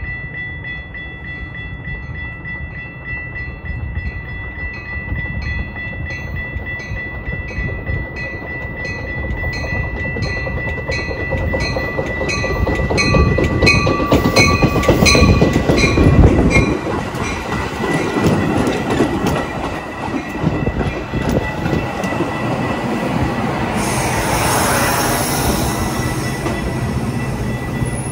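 Metra bilevel commuter train, cab car leading, rolling into the station and passing close by, with a rumble and wheel clatter that grow loudest as the cab car goes by. A bell rings about twice a second through the first half. A hissing burst comes near the end as the cars roll past.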